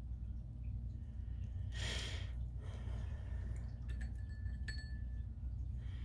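Steady low hum of room tone, with a brief hiss about two seconds in and a few faint clicks toward the middle.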